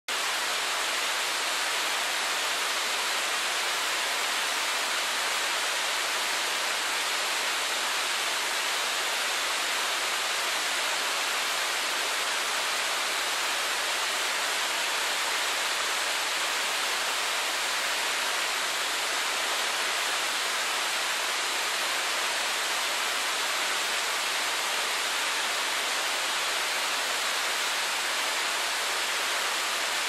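Miroku Falls, a 30 m cascade where water slides down a rock face in many thin threads, splashing and running over rock below: a steady, even rush, bright and hissy, with little deep rumble.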